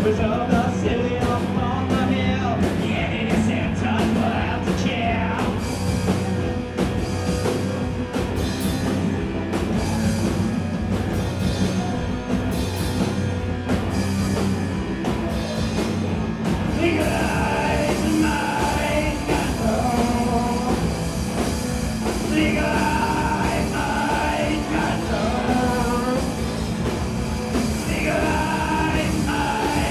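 A live rock band plays loudly: electric guitar, drum kit with cymbals, and keyboard. About halfway through, a melodic line comes in with short repeated phrases. The sound is taken from the back of the room.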